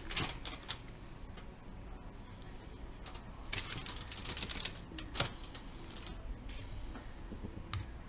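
Aluminium foil crinkling in short crackly bursts with a few sharp clicks, as hands press and spread herb puree over a fish lying on it. The crackling comes in clusters at the start, again about three and a half seconds in, and once more near the end.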